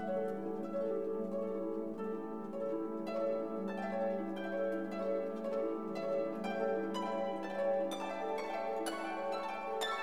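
Soft background music: a gentle melody of plucked notes that ring on, a few notes a second.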